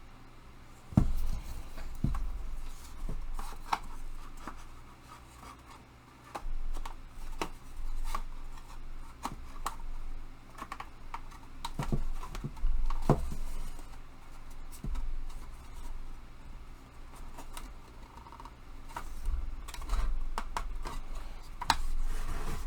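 Parts of a flat-pack tool storage rack being handled and worked into their slots: scattered light knocks, clicks and scraping, with a few sharper taps as the pieces are pressed and tapped down to seat.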